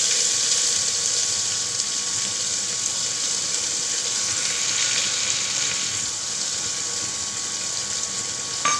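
Sliced onions sizzling in hot oil in a pressure cooker: a loud, steady hiss that slowly eases off. A short click near the end.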